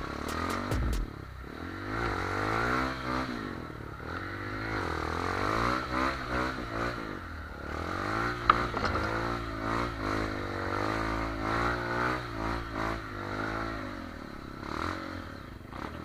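Trail motorcycle engine revving up and down over and over, the pitch rising and falling with each blip of the throttle, with one sharp knock about halfway.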